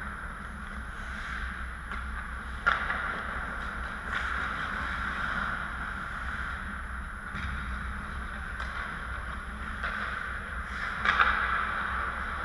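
Ice hockey rink sound: a steady scraping hiss of skates on the ice over a low background hum, with sharp knocks of hockey sticks and puck about two and a half seconds in and again near the end, the second the loudest.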